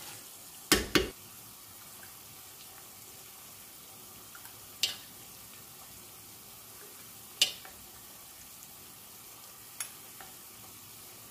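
Sauce frying softly in a large stainless steel pot, with sharp knocks of utensils against the pot and a glass as oil is spooned off the top. The loudest two knocks come close together about a second in, then single knocks follow every two to three seconds.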